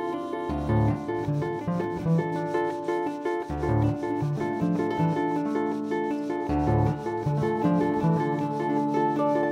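Concert harp playing a repeating looped figure of plucked notes, with a low bass note coming back about every three seconds.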